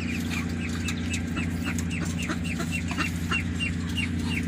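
Ducklings peeping steadily, short high peeps about four a second, over a steady low hum.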